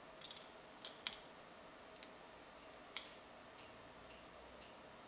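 Small metallic clicks of an 8mm wrench working the bleed screw loose on a hydraulic disc brake caliper. There are about eight short ticks at uneven spacing, the sharpest about three seconds in.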